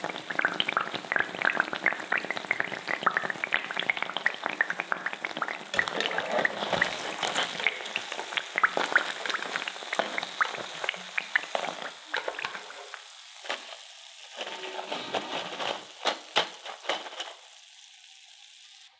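Potato and corn-starch spirals deep-frying in hot oil in a pan: dense sizzling and crackling. The crackle thins to scattered pops over the last few seconds as the fried pieces are lifted out of the oil.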